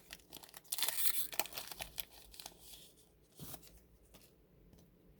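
Trading-card pack wrapper being torn and crinkled open, with dense crackling through the first three seconds, one more short crinkle about three and a half seconds in, then only faint handling ticks.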